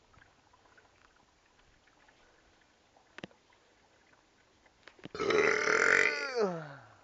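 A boy's long, loud burp starting about five seconds in and lasting nearly two seconds, its pitch sliding down at the end.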